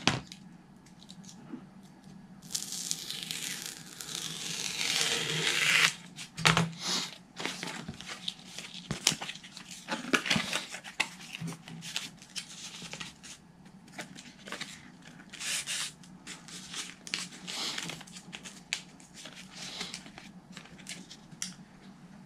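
Hobby knife drawn through EPP foam along a steel ruler: one long cut of about three and a half seconds, a few seconds in, growing louder toward its end. After it come scattered clicks and rustles as the foam wedge and a corrugated plastic (Coroplast) sheet are handled and pressed together.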